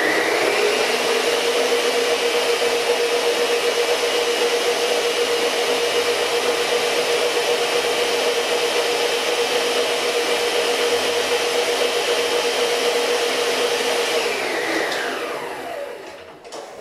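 Electric stand mixer running at a steady speed, beating butter and sugar together. Near the end it is switched off and the motor's whine falls in pitch as it spins down.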